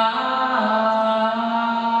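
A singing voice holding one long, steady note, stepping up in pitch briefly and settling back about half a second in.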